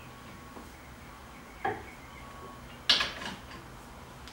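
Metal clicks of a wrench and bar on a tight 21 mm brake caliper bracket bolt as it is heaved on: a dull knock about a second and a half in, then a sharp metallic click near three seconds, with a few fainter ticks after it.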